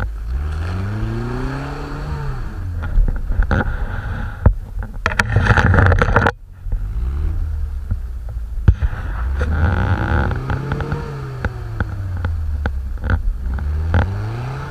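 Engine of a lifted off-road 4x4 revving up and dropping back repeatedly as it claws up a snowy slope, with tyres scraping through snow and scattered sharp knocks. A loud rush of noise in the middle cuts off suddenly.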